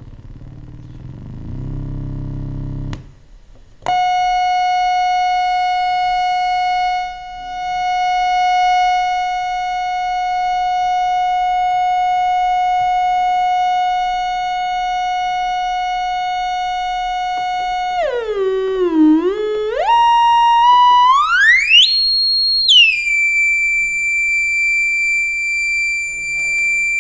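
Loudspeaker driven by a breadboarded transistor audio power amplifier, sounding a steady, buzzy test tone shaped like a sawtooth wave. Partway through, the tone glides down in pitch, sweeps up to a high whistle and settles on a higher steady tone. A lower, buzzy sound fills the first three seconds, before the tone begins about four seconds in.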